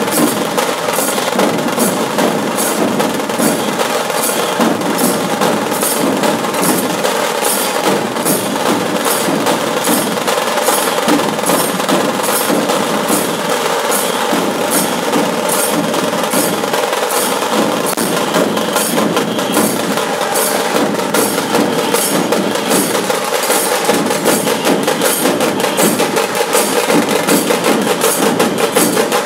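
A dhol tasha pathak ensemble playing: many large dhol barrel drums beaten with stick and cane, with tasha drums clattering over them in a loud, continuous, fast rhythm.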